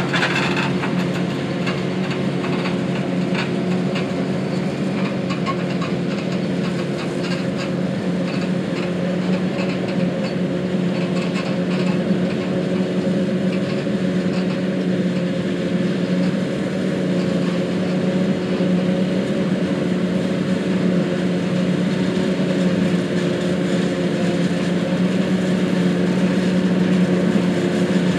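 John Deere 8600 self-propelled forage harvester and the tractor pulling its forage wagon, their diesel engines running steadily under load while chopping corn for silage. A rattling crackle rides over the engine drone and fades about halfway through.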